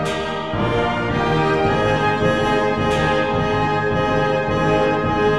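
Orchestral background music with brass playing sustained chords, with a crash-like accent at the start and another about three seconds in.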